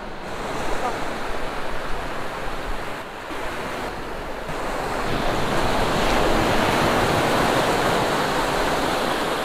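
Sea surf: small waves breaking and washing up the sandy shore, the rush growing louder about five seconds in.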